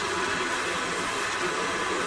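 Drill press running steadily with a small sanding drum, the spinning drum sanding the edge of a knife handle pressed against it: an even motor hum under a continuous sanding hiss.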